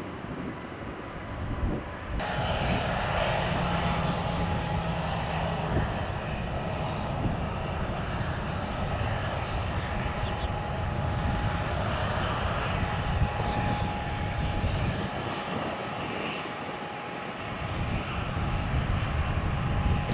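Jet engines of an arriving Boeing 737-800 airliner (CFM56-7B turbofans) running, a steady rushing noise with a faint whine; the sound changes abruptly about two seconds in.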